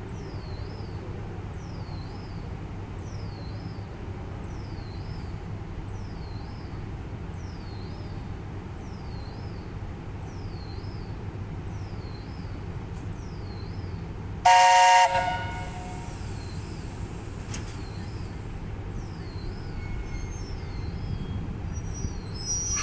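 VL10 electric locomotive standing at a platform with a steady low hum, giving one short horn blast about two-thirds of the way through, the departure signal. A faint high chirp repeats about once a second.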